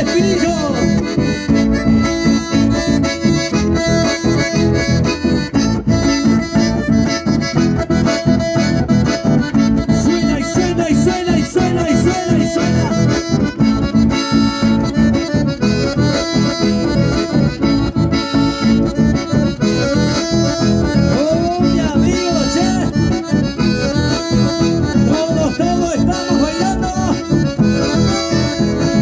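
Chamamé played live, led by two button accordions over strummed and picked acoustic guitars keeping a steady beat.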